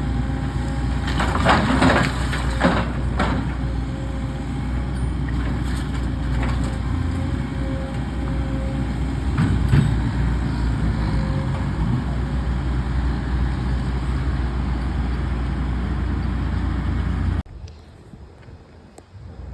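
Heavy machinery engine running steadily while wood cracks and crunches during demolition, in a cluster of breaks in the first few seconds and again about ten seconds in. The sound cuts off suddenly near the end.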